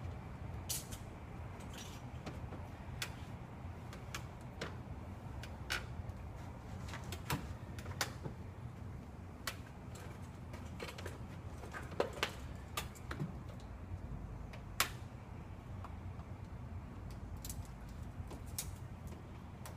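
Scattered, irregular sharp clicks and light taps of a blade working along the edge of security window film on glass as the film is trimmed, over a low steady hum.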